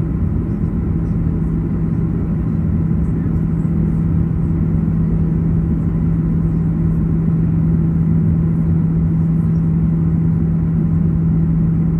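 Cabin noise of a Boeing 737-800 taxiing slowly to the gate: a steady low rumble with a constant hum from the idling engines and cabin air.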